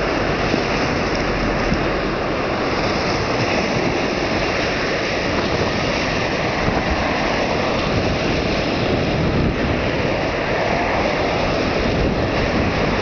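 Rough sea at high tide breaking and washing against a concrete sea wall: a steady, loud rush of surf, with wind on the microphone.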